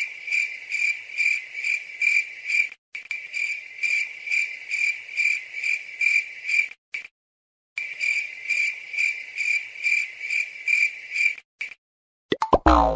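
Cricket chirping as an added sound effect: one steady chirp repeating about four times a second, cut off abruptly to dead silence a few times. Near the end, a short falling swoosh.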